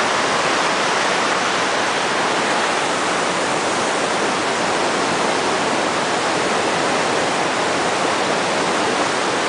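Tall waterfall rushing, a steady, unbroken noise of falling water.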